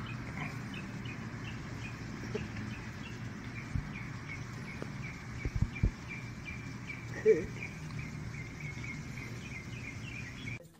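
Steady outdoor background with a high chirp repeated about three times a second throughout. A few low thumps come in the middle, and there is a brief low vocal sound about seven seconds in.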